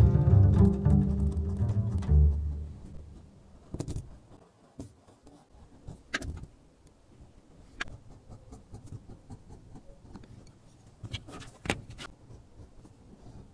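Low-pitched background music fades out after about two seconds. It gives way to quiet, irregular scraping and sharp clicks from an edge beveler shaving the edge of a leather wallet panel.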